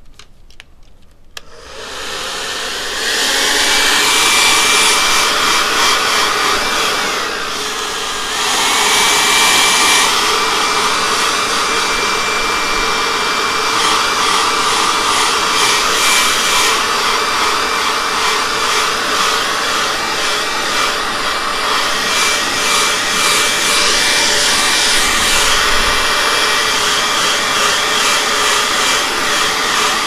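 A hand-held hair dryer switches on after a few clicks and blows steadily, a whooshing rush of air with a thin whine over it. Around seven to eight seconds in, the whine drops in pitch and the level dips briefly before picking up again.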